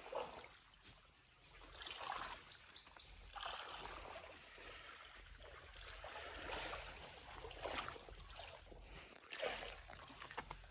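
Faint water trickling and lapping in uneven swells, with a quick run of about five short, high chirps about two seconds in.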